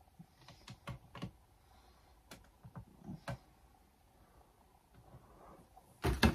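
Scattered light clicks and taps from hands handling a cardboard collection box and the plastic figure inside it, with a louder knock and rustle about six seconds in.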